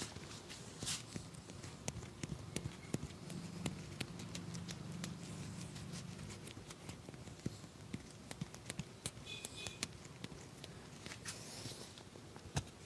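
A barber's hands giving a head and body massage: light, irregular taps and pats on skin, with a few short rubbing sounds.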